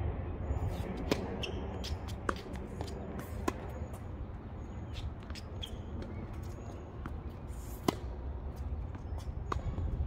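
Tennis ball struck by rackets and bouncing on a hard court during a rally: a string of sharp pocks, the loudest about a second in, at three and a half seconds and near eight seconds. A steady low rumble runs beneath them.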